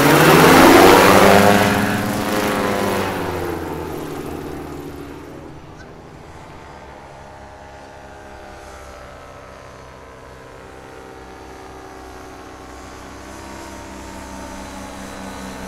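Paramotor engine and propeller passing close by: loud about a second in, its pitch dropping as it goes away, then fading to a distant steady drone. Near the end the drone grows louder again as a paramotor approaches.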